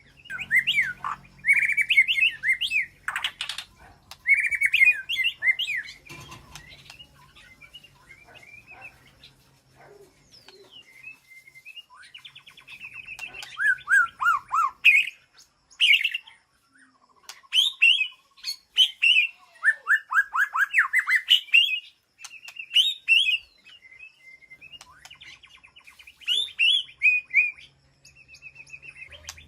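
White-rumped shama singing: varied phrases of rich whistles and quick runs of falling notes, sung in loud bursts with short pauses between them.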